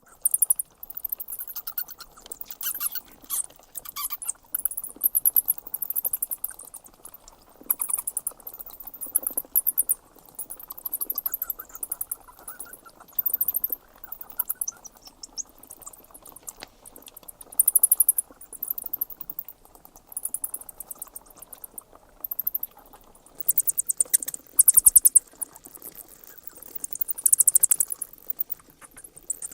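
Bats squeaking: bursts of rapid, very high-pitched squeaks, one burst every second or two, over a faint low hiss.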